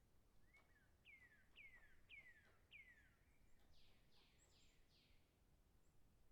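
Faint bird calls: four clear whistled notes, each sliding down in pitch, about two a second, followed by four rougher, higher-pitched notes.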